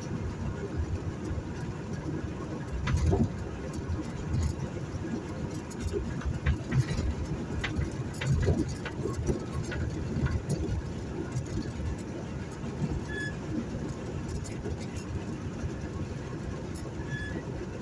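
A 1978 Volkswagen Fusca (Beetle) driving, heard from inside the cabin: the air-cooled flat-four engine running under steady road noise, with scattered light clicks and rattles.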